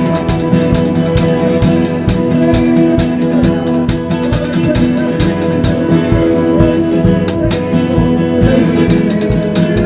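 Worship band playing: a Pearl drum kit keeps a steady, busy beat with frequent cymbal hits over guitar and sustained chords.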